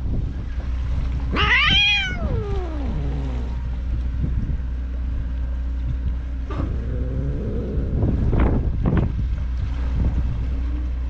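A cat meowing: one long meow about a second and a half in, rising and then falling in pitch, and a softer, lower meow about six and a half seconds in. A steady low rumble runs beneath.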